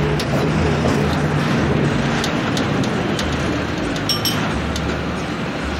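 Engine and road noise of a moving vehicle, heard from inside its cabin, with a few light rattles and a brief high-pitched squeal about four seconds in.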